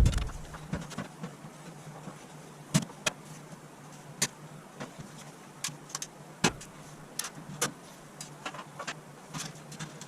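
Scattered light clicks and taps of sheet metal and hardware as the dryer's back access plate is handled and fitted back on, over a faint steady hum.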